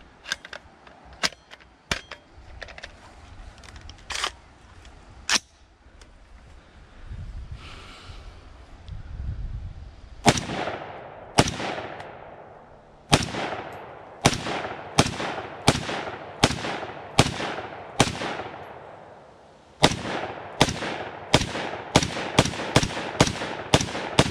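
A few sharp clicks as the rifle is handled and readied, then a string of about eighteen semi-automatic rifle shots from a DiamondBack DB15 AR-15 in 6.5 Grendel, each with a trailing echo. The shots start about a second apart with pauses, then come faster, about two a second near the end.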